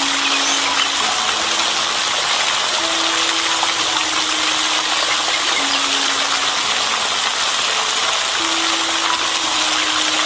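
Small pond fountain jet spraying and falling back onto the pond surface, a steady splashing rush of water. Soft, slow background music notes sit faintly underneath.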